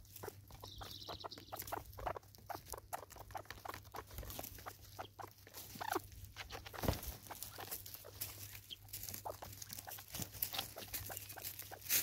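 Helmeted guineafowl pecking seed off wooden stumps: a rapid, irregular run of sharp taps of beaks on wood, with a short call about six seconds in.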